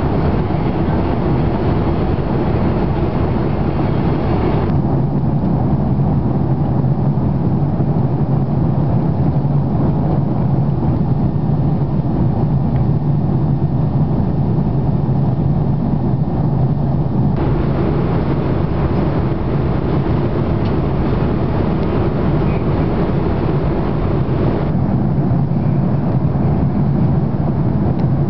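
Steady cabin noise of an Airbus A340-600 in flight, heard from the rearmost row: a continuous low rush of engines and airflow with a hum underneath. Its brightness drops abruptly about five seconds in, comes back around seventeen seconds and drops again near twenty-five seconds.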